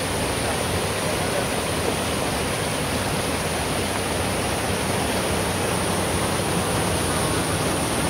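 Shallow mountain stream rushing over rocks, a steady, unbroken roar of white water.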